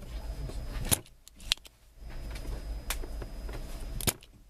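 Small metal tools being handled during desoldering: four sharp, irregular clicks and clinks over a low steady hum.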